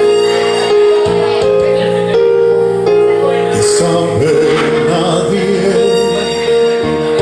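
Recorded backing music for a sung ballad playing through a loudspeaker: slow, sustained held chords that change every second or so.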